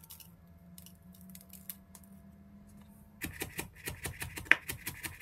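Chef's knife rapidly slicing red chili on a wooden cutting board: quick, even knocks about six a second, starting about three seconds in, one stroke much louder. Before the chopping, faint small clicks and rustles of fingers picking the seeds out of the halved pepper.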